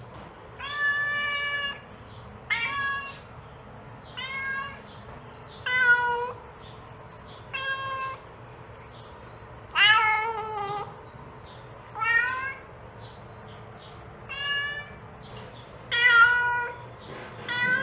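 Mother cat calling her kittens: a domestic cat meowing over and over, about one call every one and a half to two seconds. The loudest and longest call comes about ten seconds in, sliding down in pitch.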